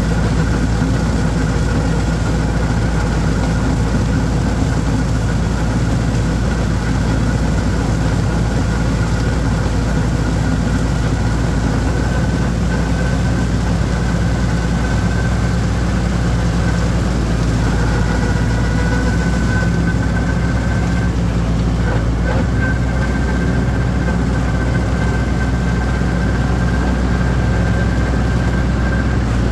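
Holder compact tractor's diesel engine running steadily while mowing, with a thin steady high whine over the low engine hum.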